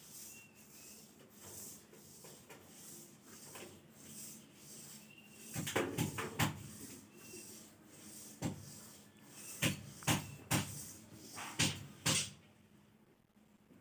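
Irregular knocks and clatters, clustered about halfway through and again near the end, with a few short high squeaks between them.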